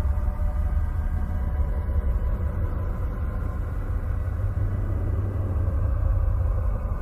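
Sonified spacecraft radio and plasma-wave recording from the outer solar system: a steady deep rumble with faint, even drones held above it.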